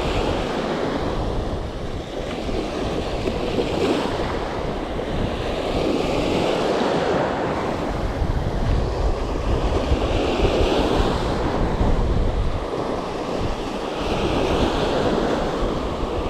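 Surf washing up the beach in repeated swells every few seconds, with wind buffeting the microphone.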